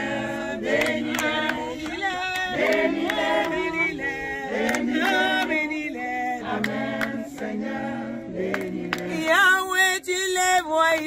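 Choir and lead singer singing a slow French gospel worship song, with a regular beat under the voices. Near the end a high woman's voice rises above the choir.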